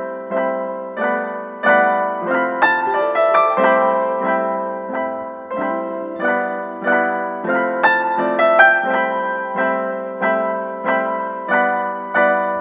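Background piano music: single notes struck at a steady, unhurried pace, about two a second, each left to ring and fade.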